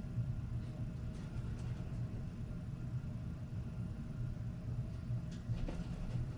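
A steady low mechanical hum, like a motor or engine running, with a few faint light clicks near the end.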